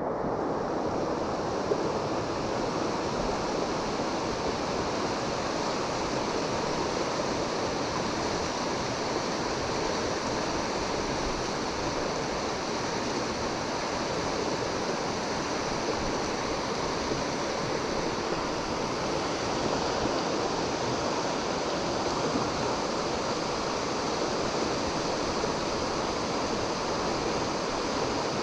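Steady rush of a fast-flowing river's current, an even noise with no breaks.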